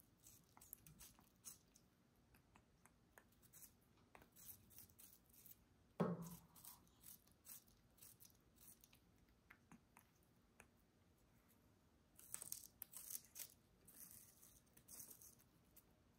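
African grey parrot biting and nibbling a chunk of watermelon: faint, crisp wet crunches and ticks of the beak tearing the flesh, with two busier spells of nibbling near the end. One louder knock about six seconds in.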